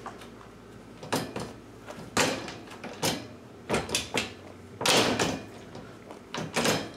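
A top-of-stairs baby gate being handled at its upper hinge and wall mount: a series of short rattles, clunks and scrapes, about six of them a second or so apart, as the gate is fitted and adjusted in its bracket.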